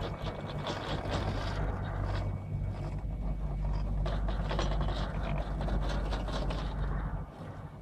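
Doppelmayr three-seat chairlift running past a tower: a steady low rumble from the haul rope rolling over the tower's sheave wheels, with irregular clacking and rattling as chair grips pass over the sheaves. The sound eases near the end.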